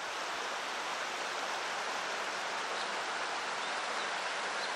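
Shallow mountain stream flowing steadily over a rocky riverbed.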